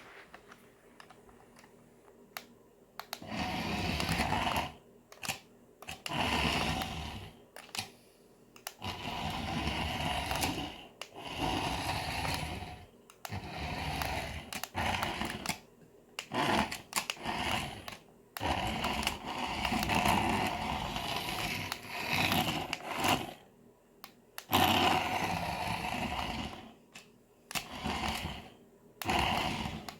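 Small electric drive motor of a 6-inch Disney Cars Sheriff RC toy car whirring in repeated short bursts, starting and stopping every second or two as it is driven on a hard kitchen floor.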